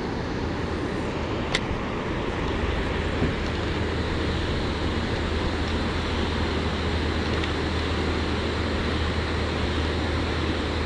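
Steady rumbling rush of water pouring through an open dam spillway gate, with a single sharp click about one and a half seconds in.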